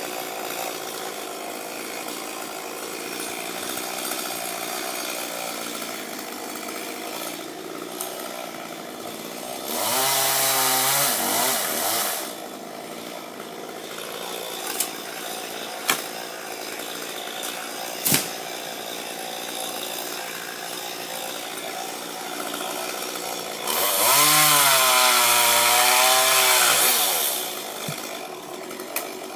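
Chainsaw running at idle during tree cutting, revved up to full throttle twice for a couple of seconds each time, about ten seconds in and again near the end, with a few sharp knocks in between.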